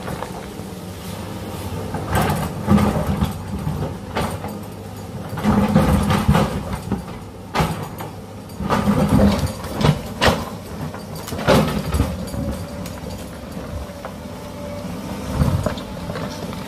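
Small electric motors and plastic gears of a toy remote-control excavator running, whirring louder in bursts of a second or so as the turret swings and the arm digs, with clicks and knocks among them.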